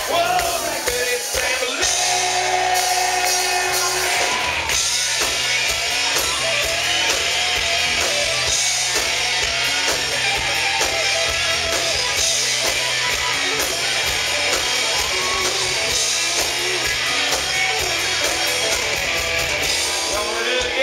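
Live rock band playing: two electric guitars over drums, with a singer's voice in places.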